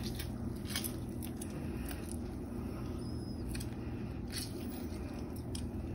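A lemon half squeezed by hand over chicken in a cast-iron skillet: faint squishing with scattered light ticks of juice dripping, over a low steady hum.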